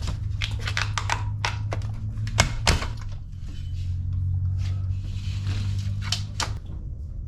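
Scattered clicks, taps and knocks from handling a roll of new screen mesh, with two sharper knocks about two and a half seconds in, over a low steady hum.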